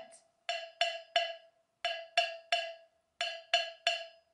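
Hand-held cowbell struck with a stick in a repeating three-stroke 'chocolate' pattern. There are three groups of three quick strikes, each group a little over a second after the last, and the bell's metallic ring carries on between strokes.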